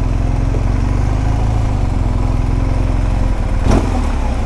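BMW R1250 GSA's boxer-twin engine running steadily at low revs, with one sharp click about three and a half seconds in.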